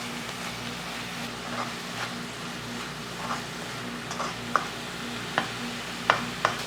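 Crushed onions sizzling in hot oil in a pan while being stirred, as their water cooks off and the oil starts to separate. A utensil clicks against the pan a few times in the second half.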